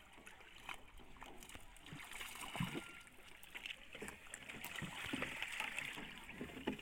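Irregular splashing and sloshing of water as a hooked fish thrashes at the surface on the line.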